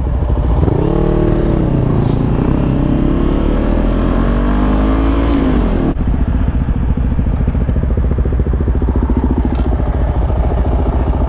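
Motorcycle engine accelerating from a turn: its pitch climbs, dips at a gear change, then climbs steadily for several seconds before dropping suddenly about six seconds in. After that it runs at a steady cruise with rushing wind noise, heard from a helmet-mounted camera.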